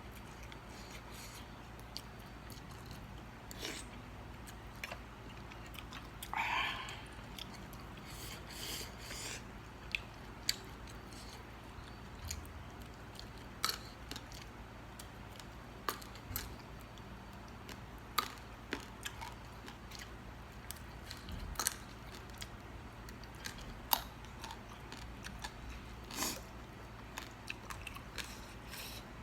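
A person chewing and biting into spicy seafood papaya salad close to the microphone, with wet chewing and scattered short crunches and clicks.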